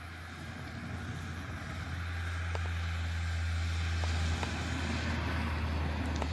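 A car driving past on a road, its tyre and engine noise swelling over the first few seconds and then holding steady, over a low steady hum.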